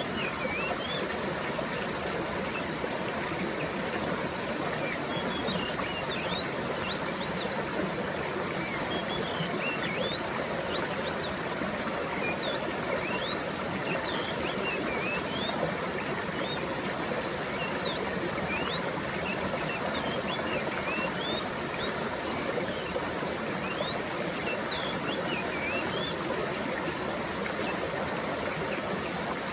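Steadily flowing stream water with many small birds chirping over it, short quick chirps scattered throughout.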